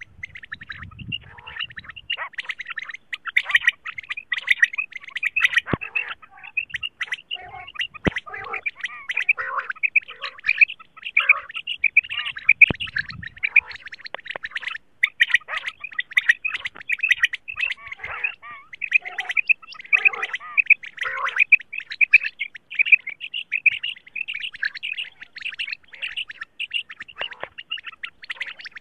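Female quail (batair) calling: a dense, continuous run of short, high chirps, the kind of call track played to lure quail.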